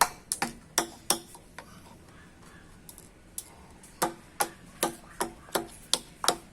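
Cloves being lightly pounded to crack them: a series of sharp knocks, about two to three a second, with a pause of about two seconds in the middle.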